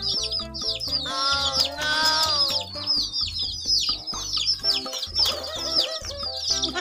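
Baby chicks peeping constantly, a rapid run of short, high, falling peeps at about five a second, over background music with a steady beat. A gliding, rising-and-falling tone in the music stands out about a second in.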